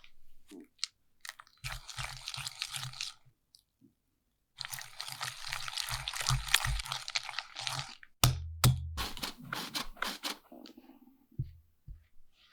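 Crunching and crackling in two long spells with dull thumps beneath, then a sharp knock and a few clicks about eight seconds in.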